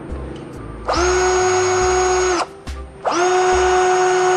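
Yato YT-82782 18 V cordless drill-driver run twice with no load, a drill bit in the chuck: a steady motor whine for about a second and a half each time, quickly reaching full speed and winding down when the trigger is released.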